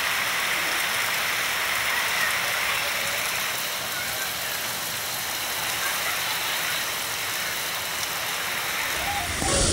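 Steady rain falling, an even dense hiss, briefly louder just before the end.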